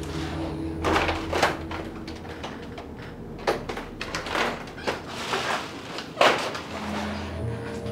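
A series of irregular knocks, scuffs and rattles, about seven sharp ones, over a faint low steady hum.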